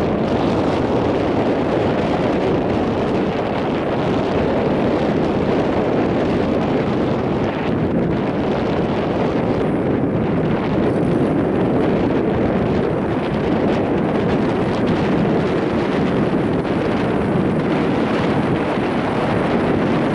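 Small tiller outboard motor on an aluminium jon boat running steadily at low speed, mixed with wind buffeting the microphone.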